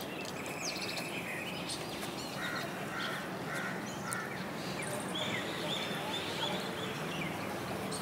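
Birds calling over steady outdoor background noise, with a run of short calls before halfway and a longer call a little past the middle.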